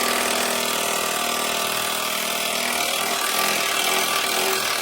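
A power tool running steadily with a mechanical whir, stopping abruptly just after the end.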